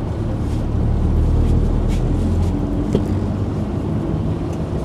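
Vehicle engine idling with a steady low hum, with a faint click about three seconds in.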